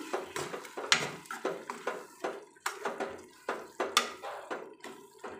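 Steel ladle stirring a thick tomato-onion masala in a metal kadhai, knocking and scraping against the pan in repeated irregular clinks, about two or three a second.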